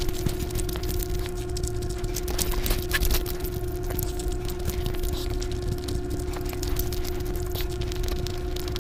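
Close-miked eating sounds: chewing and mouth clicks, with the squish of biryani rice squeezed in the fingers, as a stream of small crackles. Under them runs a steady low hum.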